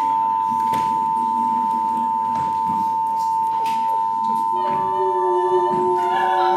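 A steady 1 kHz test-pattern tone, the beep that goes with a colour-bar 'technical difficulties, please stand by' screen. About four and a half seconds in, several other held notes at different pitches join it.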